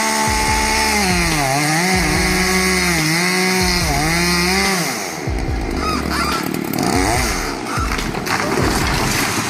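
Chainsaw running at high revs, its pitch dipping three times as it bogs down in the cut and recovering each time, until it drops off about five seconds in. A rougher, crackling stretch follows.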